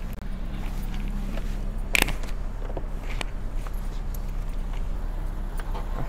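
Steady low rumble of car and road traffic, with one sharp knock about two seconds in and a few lighter clicks of handling after it.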